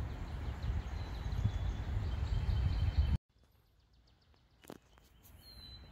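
Low rumbling noise on a phone's microphone with faint high bird chirps, cutting off abruptly about three seconds in. Then near quiet, broken by one faint click and a short, high bird call.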